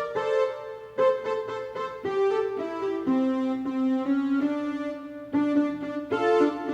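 Electronic keyboard playing a melody, note by note, with a new note about every half second to a second and some notes held longer.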